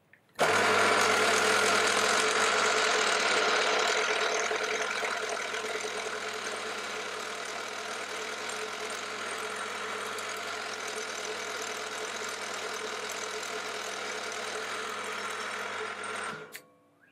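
Milling machine spindle running, with a twist drill boring a hole into a wooden block. The sound starts and stops abruptly; it is louder for the first few seconds, then settles to a steady, quieter level.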